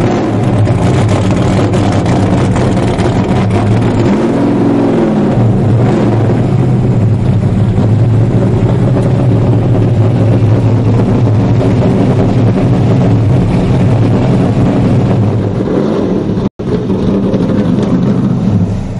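A loud engine running steadily, with one brief rise and fall in pitch about four seconds in. The sound cuts out for an instant near the end.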